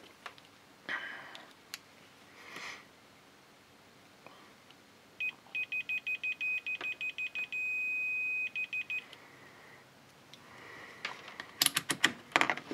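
Fluke digital multimeter's continuity beeper sounding as a test probe touches the conductor of a DC plug lead during a polarity check: about a dozen quick high beeps, a steady beep for most of a second, then a few more quick beeps. Rustling of the cable and clicks of the test probes around it, loudest near the end.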